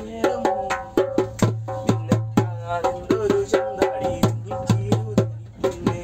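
A djembe hand drum played with bare hands in a quick, steady rhythm of about four strikes a second, with a voice singing along in held notes.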